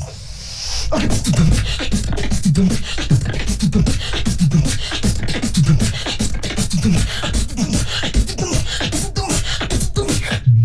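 Human beatboxing: a dense, fast rhythm of vocal kick drums, snares and clicks over a low, steady bass. It opens with a soft hissing sound, like a cymbal, in the first second.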